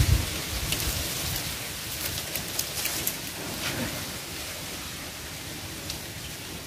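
A gust of wind buffets the microphone with a low rumble that dies away right at the start. A steady hiss of wind follows, with a few faint crackles of the clear plastic kite sheet as it is handled.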